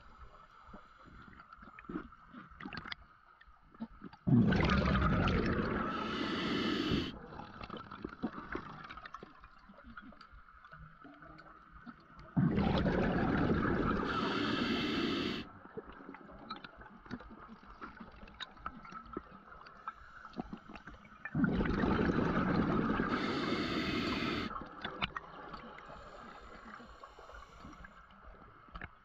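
A scuba diver's exhaled breath bubbling out of the regulator: three long gurgling bursts, roughly nine seconds apart, with quieter crackling between breaths.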